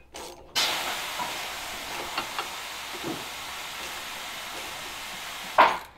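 A steady hiss that starts suddenly about half a second in, holds even for about five seconds, and cuts off with a short louder burst near the end.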